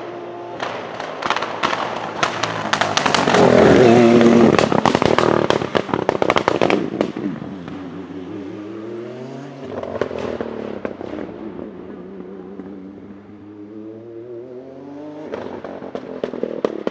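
Norma M20 SF hillclimb prototype's twin-turbo V6 (Nissan VR38DETT-based) at full throttle past the camera, with a rapid string of anti-lag bangs and crackles loudest about four seconds in. As it pulls away up the hill, the engine note climbs and drops sharply at each upshift, and more anti-lag crackles come near the end.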